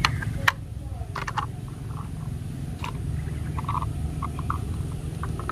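Plastic toy train cars being handled and coupled, giving a scatter of light plastic clicks and taps over a steady low rumble, with one sharper click about half a second in.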